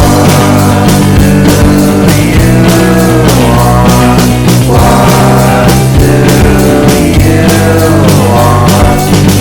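Loud background rock music with a steady drum beat and a melody that bends in pitch.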